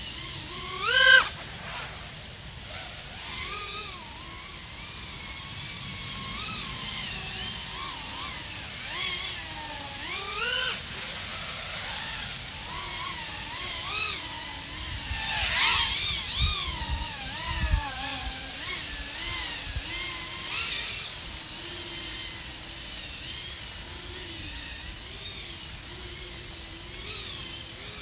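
Brushless motors and 3.5-inch propellers of an iFlight AOS 3.5 V5 FPV quadcopter (XING 1504 3100KV motors) whining. The pitch rises and falls constantly with throttle, with a few sharp louder surges, the first about a second in and others around the middle, and it settles to a steadier pitch near the end.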